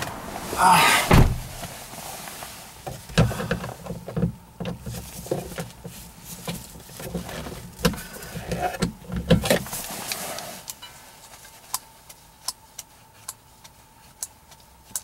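Hand-tool work at a car's plastic overhead console: a loud rustle and thump about a second in, then a run of clicks and knocks of a socket wrench against the fittings and trim. After about ten seconds it thins to single sharp clicks, a little under one a second.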